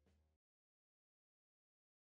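Faint tail of background music that cuts off less than half a second in, followed by complete digital silence.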